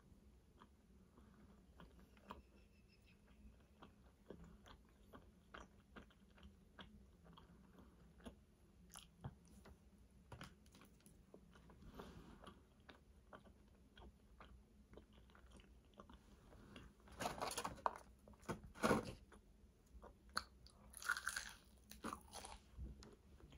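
Close-miked chewing of a fast-food meal: soft wet mouth clicks throughout, with a few louder crunchy bites about three-quarters of the way through.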